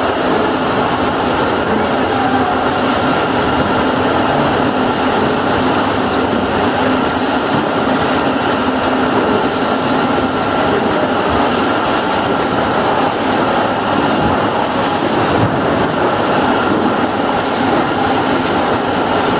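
Automatic motor-oil bottle filling, capping and labeling line running: a steady machine drone with a constant hum, plus light ticks and brief squeaks from the conveyors and bottles.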